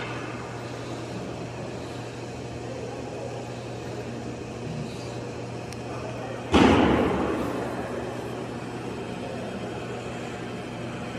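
Steady hum of an indoor ice rink, broken a little past halfway by one loud bang against the rink's boards and glass, which rings on in the hall for about a second and a half.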